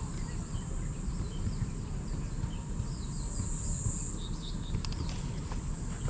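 Insects shrilling steadily at a high pitch, swelling louder for a moment about halfway through, with scattered short bird chirps and a low rumble underneath.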